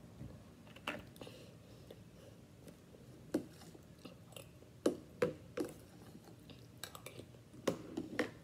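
Chewing crunchy cereal, with a metal spoon clinking and scraping in a glass mug in scattered short knocks that come closer together near the end.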